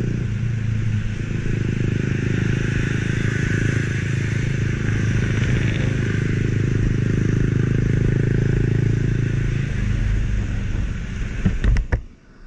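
Motorcycle engine running at cruising speed, heard from the rider's seat with wind and road noise over the microphone. Near the end a few sharp knocks, and then the sound drops away suddenly.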